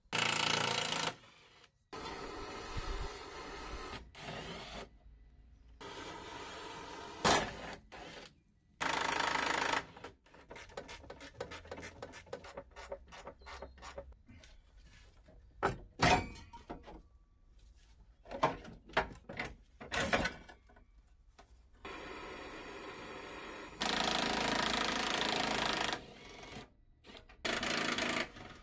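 A power impact wrench undoing bolts, run in short trigger bursts that start and stop abruptly several times. Between the bursts come clicks and a few sharp metal clanks from tools and loose parts.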